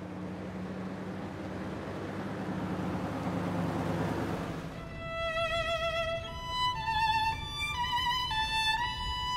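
A car approaching with its engine running, growing louder, then cutting off abruptly about four and a half seconds in. A solo violin melody with vibrato takes over from about five seconds in, as film score.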